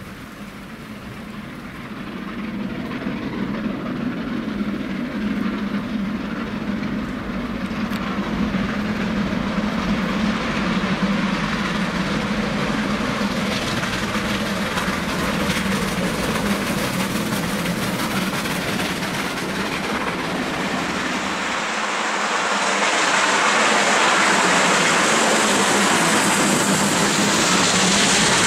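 Three-cylinder Merchant Navy class steam locomotive 35028 Clan Line approaching under steam with its train. It grows steadily louder, and a fuller, hissing rush builds in the last several seconds as it draws close.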